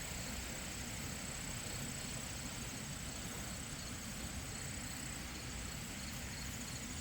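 Steady rush of a small creek waterfall, with crickets singing: one continuous high-pitched trill over it and a fainter, evenly pulsed chirping.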